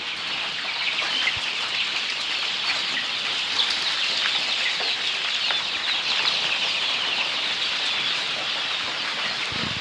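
Brood of three-week-old chicks peeping together: a dense, continuous chorus of many short, high overlapping chirps.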